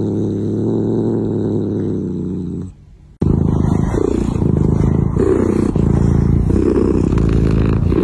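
Cat purring loudly with a steady, deep, engine-like rumble. After a brief drop about three seconds in, the purring comes back louder and rougher close to the microphone, swelling and easing in a slow rhythm.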